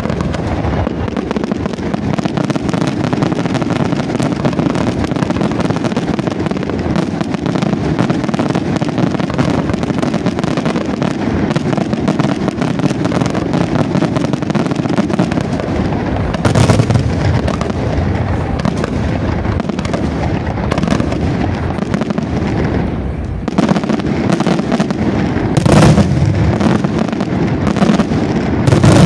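Fireworks display going off without a break: a dense stream of rapid pops and bangs from bursting shells, with heavier, louder bursts at about two-thirds through and again in the last few seconds.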